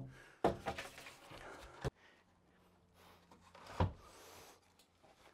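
A 2x6 board being handled and set into wooden floor framing: several wooden knocks and thumps with some scraping, the loudest about half a second in, a sharp knock near two seconds and another thump near four seconds.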